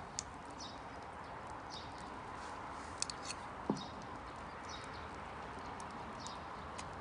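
Wood campfire crackling: scattered sharp pops and clicks over a steady hiss, with a brief falling squeak a little past halfway.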